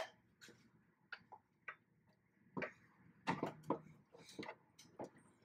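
Faint, irregular clicks and taps of a phone being handled, coming more often after about three seconds.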